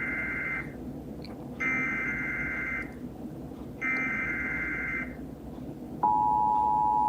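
Emergency Alert System SAME header: three raspy bursts of digital data tones, each about a second long with a second's gap between them. About six seconds in, the steady two-tone EAS attention signal starts, marking the start of a tornado drill test alert.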